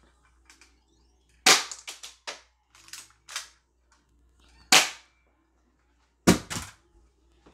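Spring-loaded airsoft pistol fired three times a second or two apart, each sharp snap followed by a few quick, fainter clicks.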